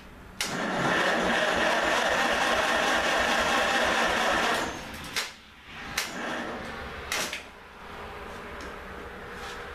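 1948 Farmall H's four-cylinder engine being cranked by its starter, fed 12 volts directly through jumper leads, for about four seconds before it stops. A few sharp clicks follow, then a quieter steady sound.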